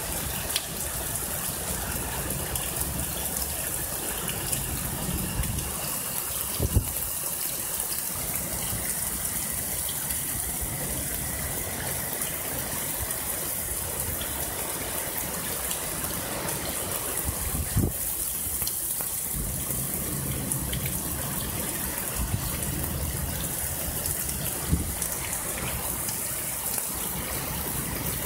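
Heavy rain pouring steadily in a storm, a constant dense hiss, with a low rumble that comes and goes and three brief low thumps.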